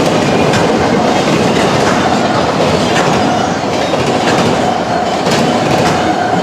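CSX freight train rolling past, its wheels clattering over the rail joints in a steady run of clicks, with a steady whine under the rumble.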